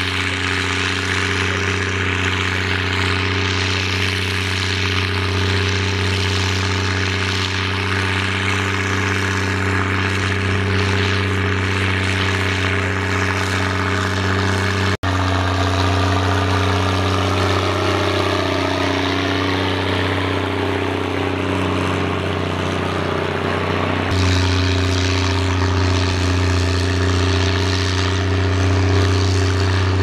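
International 1455 XL tractor's six-cylinder diesel engine running steadily under load while pulling a plough through heavy, wet clay, with a deep exhaust note from its non-original exhaust. The engine note shifts in pitch for a while in the middle, then settles again.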